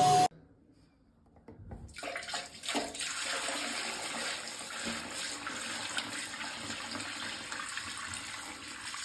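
A suction extractor's motor hum cuts off abruptly just at the start. After a near-quiet second, dirty extraction water is poured from the machine's white tank into a toilet bowl, splashing and gurgling steadily.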